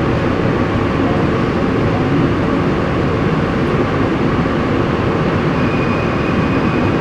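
Tobu Railway commuter train running along the line, a steady rumble of wheels on rail heard from inside the car. A faint steady high tone comes in near the end.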